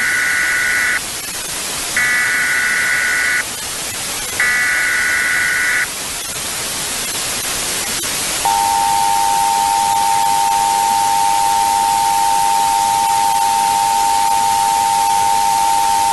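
Emergency Alert System header tones over a constant static hiss: three short, shrill data bursts about a second apart, then, from about halfway in, the long steady attention tone that announces the broadcast message.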